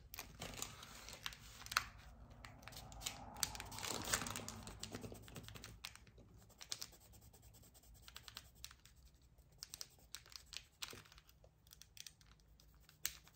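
Coloured drawing pencil scratching across sketchbook paper as a swatch is shaded in, with scattered light taps and clicks. The scratching is densest in the first few seconds and thins out after.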